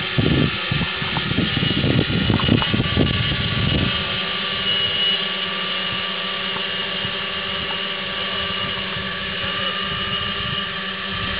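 Large multirotor drone hovering low, its electric motors and propellers giving a steady whine of several tones. Heavy low buffeting runs underneath for the first four seconds, then stops.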